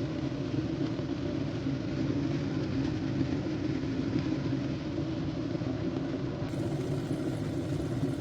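Hazel Quinn stainless-steel electric kettle heating water: a steady low rushing noise from the water warming toward the boil.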